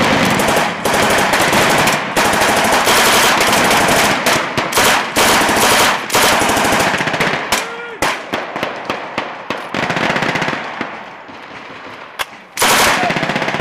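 Belt-fed light machine gun firing blanks in rapid automatic bursts, shot after shot close together. Near the end the firing thins out for about two seconds, then loud bursts start again.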